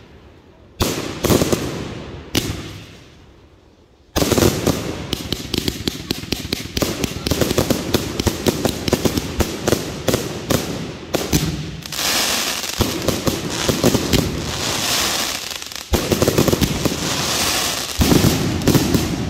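100-shot firework cake firing: two separate loud bursts in the first few seconds, then from about four seconds in a rapid, unbroken barrage of launches and bangs. From about twelve seconds a crackling hiss runs over it, with two heavier bangs near the end.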